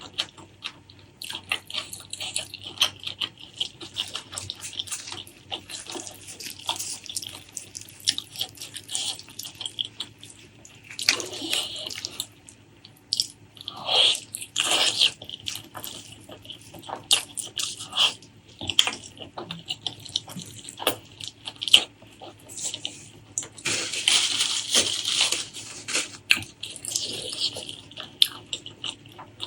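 Close-miked wet eating sounds of spicy pork leg curry with rice: sticky chewing and mouth smacks with many small clicks. A few longer wet, slurpy stretches come around the middle and again near the end.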